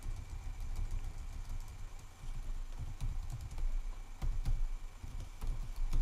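Typing on a computer keyboard: a run of irregular key clicks over a low background hum.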